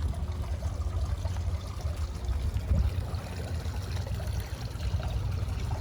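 Water trickling and lapping over a steady low rumble.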